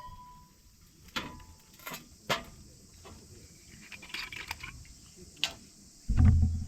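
Crickets chirring steadily, with several sharp clicks and knocks scattered through and a louder low thump near the end.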